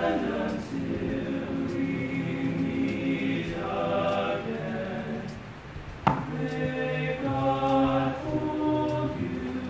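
All-male a cappella group singing held chords in close harmony in a church, with a sharp click about six seconds in.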